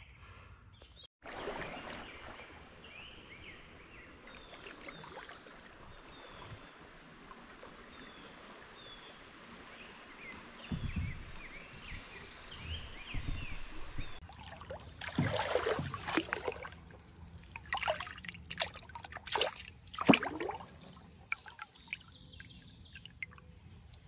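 Songbirds chirping over a quiet murmur of river water, then kayak paddle strokes splashing and sloshing in the water from about halfway on, the loudest splash about twenty seconds in.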